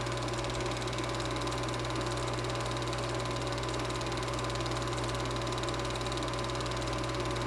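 Super 8 film projector running: a steady motor hum with a fast, even clatter.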